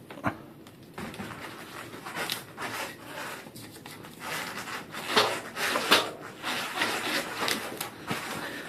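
Handling noise from a bicycle being checked after a headset service: irregular rubbing and scraping with a few sharp knocks, busiest about five to six seconds in.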